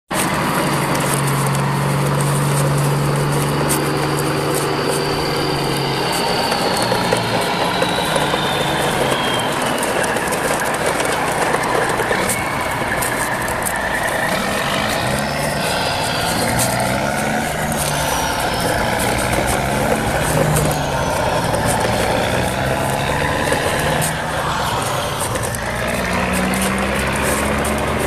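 Heavy truck engine sound, running and shifting in pitch, with a high whistling tone that glides downward a few seconds in.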